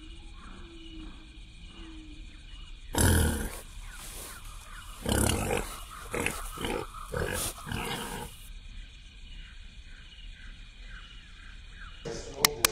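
Animal calls: one loud cry about three seconds in, then a run of several shorter calls over the next few seconds.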